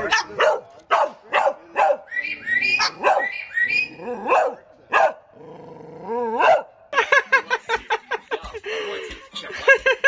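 A dog and a white cockatoo trade barks, one short bark or yelp about every half second, the cockatoo mimicking a dog's bark. From about seven seconds in, the calls come quicker, about four a second.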